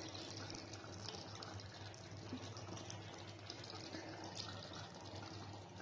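Rui fish kalia gravy simmering in a pan after the fish pieces have gone in: a faint steady hiss with fine light bubbling, over a low steady hum.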